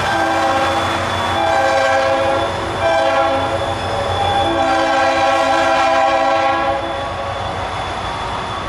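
Train horn sounding a chord of several notes: a long blast, a short one, then another long blast, over the low rumble of the train.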